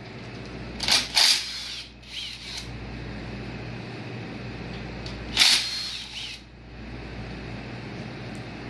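Tools working on a partly stripped engine: three short, sharp metallic noises, two close together about a second in and one more a little after five seconds, over a steady low shop hum.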